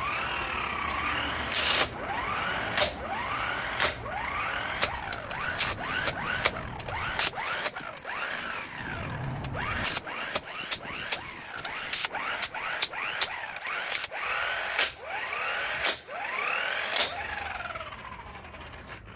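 Task Star 12 V electric impact wrench tightening lug nuts back onto a truck wheel, run in repeated short bursts. The motor's whine rises and falls with each burst, and sharp clicks sound in between.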